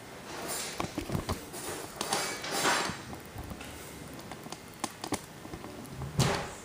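Handling of a VHS tape and its plastic case: scattered clicks and knocks with rustling, and a louder knock near the end.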